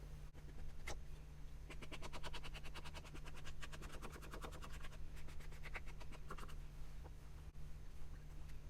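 Distress Oxide ink being rubbed onto the edges of paper: a quick run of scratchy strokes, several a second, starting about two seconds in and stopping a couple of seconds before the end.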